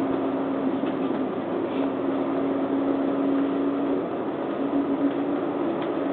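Cabin noise of a moving bus, heard from inside: a steady engine and road rumble with a steady hum that drops out briefly about four seconds in, then returns.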